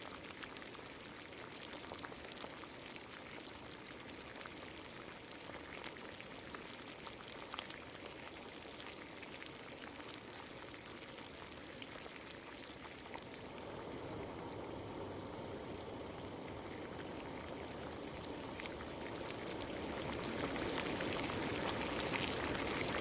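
Water boiling in a pan for Maggi noodles, a steady bubbling hiss with fine crackles that grows louder over the last several seconds.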